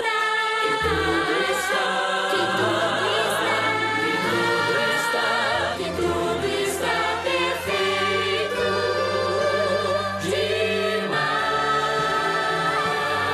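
Show song sung in Portuguese: a lead female voice and a chorus singing together over instrumental backing.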